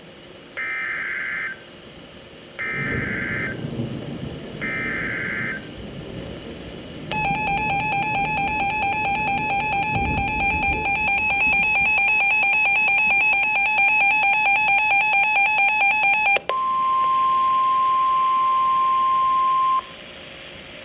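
Emergency Alert System alert tones. First, three roughly one-second bursts of the SAME header's data screech. Then the pulsing two-tone attention signal for about nine seconds, and a steady single tone for about three seconds.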